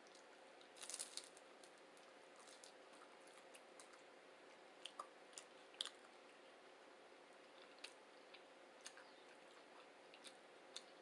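Quiet chewing of a crispy fried veggie egg roll: a short burst of crunching about a second in, then scattered soft crunches and mouth clicks over a faint steady hum.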